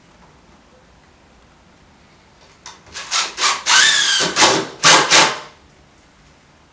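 Cordless drill driving a screw into timber in a run of about eight short trigger bursts, starting about two and a half seconds in and lasting about three seconds. One longer burst carries a thin, high, falling whine.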